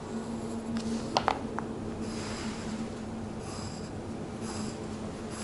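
Pen strokes scratching on a paper worksheet as small check boxes are drawn, in several short strokes, with a few light taps about a second in. A steady low hum sits underneath.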